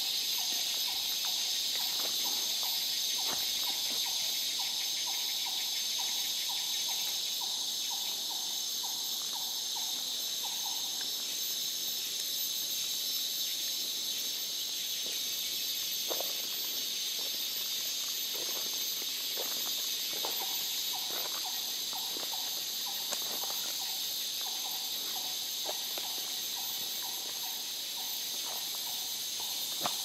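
Daytime rainforest insect chorus: a dense, steady high-pitched shrilling and buzzing from many insects at once. Over it, a mid-pitched call pulses about twice a second for several seconds, stops, and returns in the second half. Scattered soft footfalls and rustles sound on the trail.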